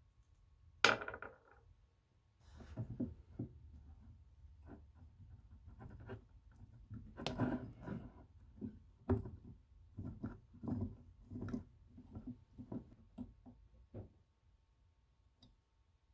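A sharp clack about a second in, then a string of irregular scrapes and light knocks of a metal rod worked against a rusty vice jaw around its pin.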